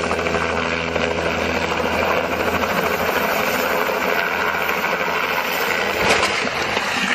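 Helicopter engine and rotor running steadily at close range. About six seconds in there is one sharp crash as the helicopter rolls over and its main rotor strikes the ground.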